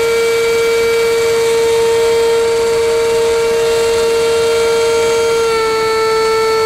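Radio-controlled L-39 Albatros model jet in flight, its power unit giving a loud, steady whine, heard close up from a camera on board. The pitch steps down slightly about five and a half seconds in.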